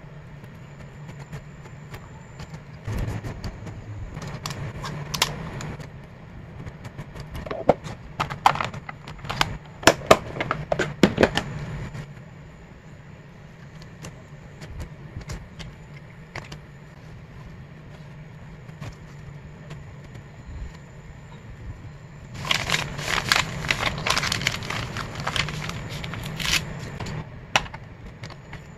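Clear plastic photocard sleeves and a hard clear plastic case being handled: crinkling, rustling plastic film with sharp clicks and taps, in two spells of bursts, over a steady low hum.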